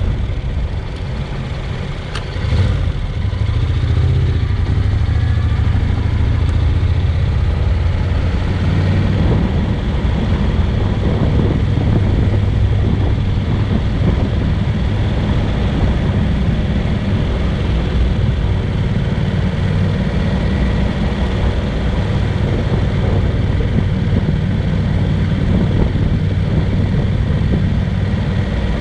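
Honda NC750X's 745 cc parallel-twin engine running steadily while riding, under a constant rush of wind and road noise. It is a little quieter for the first couple of seconds and picks up about two and a half seconds in.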